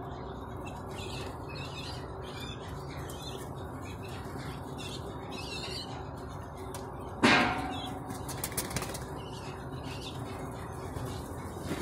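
Domestic pigeons flapping their wings, with a quick run of sharp wing claps about eight seconds in. Just before the claps there is one sudden loud bang that rings briefly and fades. Faint bird chirps sound in the background.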